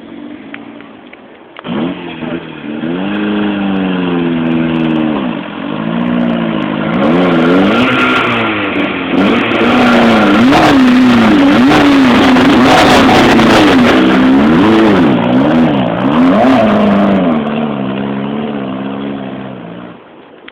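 A trials car's engine revving hard as it climbs a trial section, the revs rising and falling over and over as the wheels grip and spin. It starts a couple of seconds in, is loudest in the middle, and dies away near the end.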